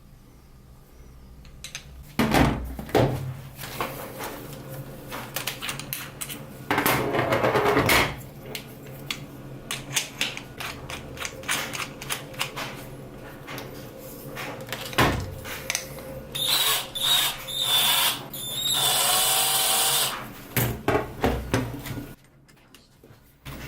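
Cordless drill driving a 90-degree right-angle screwdriver adapter, running in several short bursts, the longest about a second and a half, with clicks and knocks of the tool being handled and fitted.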